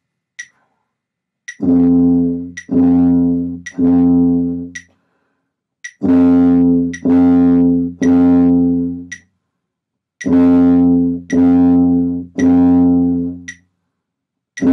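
Tuba playing three groups of three separately tongued quarter notes on a low open-valve concert F, each note about a second long with a short rest between groups. A metronome clicks about once a second throughout.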